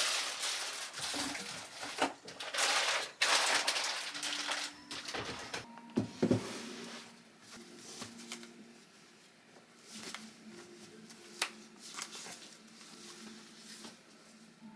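Rustling and crinkling handling noises that come in bursts over the first several seconds, then give way to quieter, scattered light clicks.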